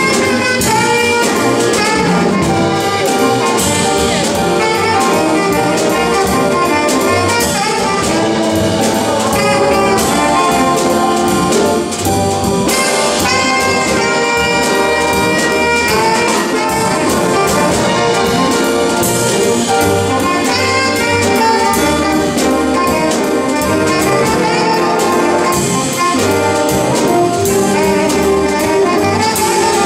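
A jazz big band playing: saxophone, trumpet and trombone sections over a rhythm section of drum kit, upright bass and piano, with the drummer keeping a steady beat on the cymbals.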